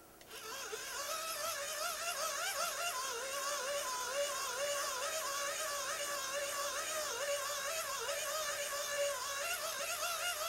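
Music: a single wavering melody line that plays on without breaks.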